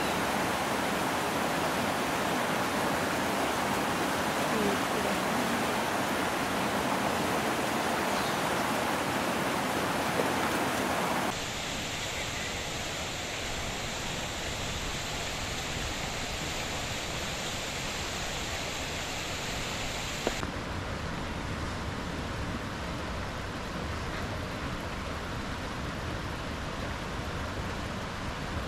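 Steady rushing of hot spring water, an even noise without tones that steps down a little in level about eleven seconds in.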